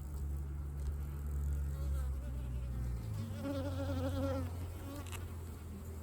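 Honey bees buzzing steadily around an open hive. About three seconds in, a louder, wavering buzz rises for a little over a second.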